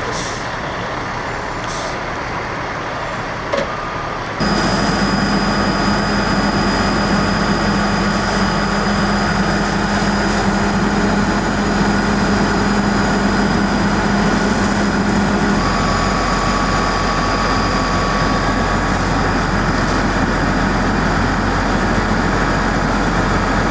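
Heavy diesel truck engine running steadily, with a steady hum and whine; it gets abruptly louder about four seconds in.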